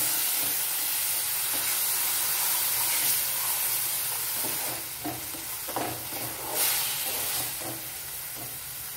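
Onion and tomato masala sizzling in a nonstick frying pan while a spatula stirs and scrapes it. The spatula strokes against the pan grow more distinct in the second half.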